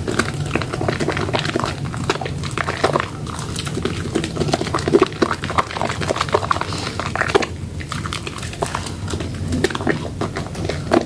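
Wet Lux soap bars being lathered: a continuous run of irregular wet squishing and crackling foam sounds.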